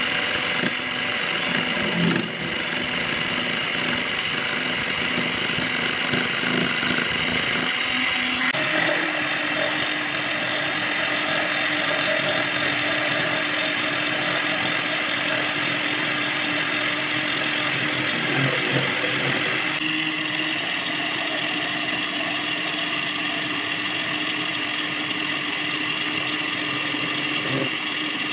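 Small bench lathe running steadily while turning a metal rod, its motor and spindle hum mixed with the scrape of the cutting tool on the metal. The tone shifts about a third of the way in and again about two thirds in.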